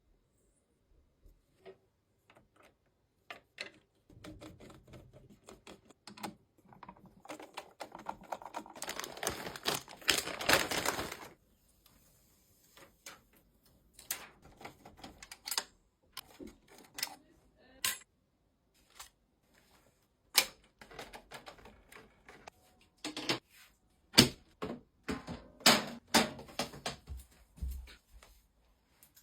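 Irregular clicks, taps and knocks of hands handling and fitting PC case parts and cables during assembly, with a few seconds of denser rustling and scraping in the middle.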